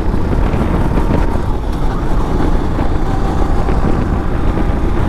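Racing kart's engine running hard at speed, heard from the kart's onboard camera, with wind rushing over the microphone.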